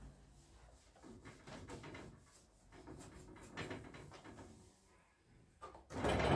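Quiet household handling sounds: soft rustling and light knocks of things being moved about, with one louder bump near the end, like a cupboard door or drawer being shut.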